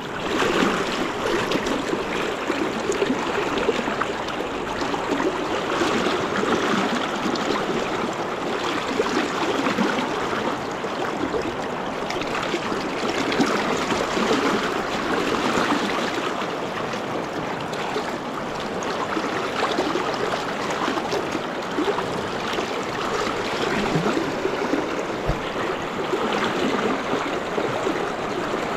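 Fast-flowing river riffle rushing steadily around the wading angler, an even wash of water noise with no let-up.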